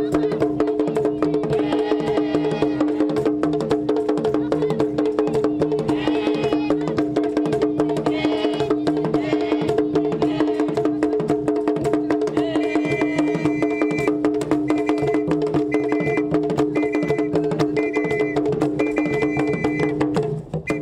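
Traditional Tanzanian dance music: drums beating a fast, steady rhythm with a clacking wood-block beat under a held droning tone, with voices singing over it. From a little past halfway, a high note sounds in short repeated blasts, and the music stops abruptly at the very end.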